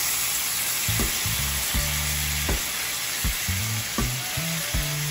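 Salmon fillets frying in browned butter in a stainless steel skillet, a steady sizzle with a few small sharp pops, as fresh lime juice is squeezed into the hot pan.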